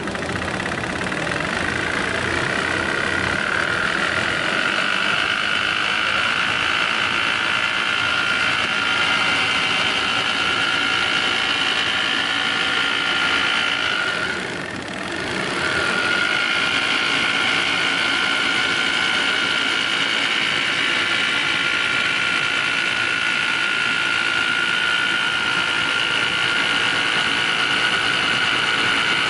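Procut-250 rotary label cutter running steadily: a continuous machine hum with a high, steady whine. The sound dips briefly about halfway through, then resumes as before.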